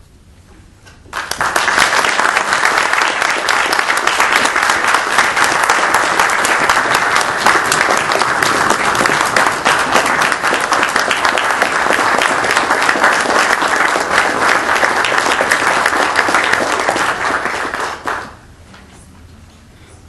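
Audience applauding, starting suddenly about a second in and stopping fairly sharply about two seconds before the end.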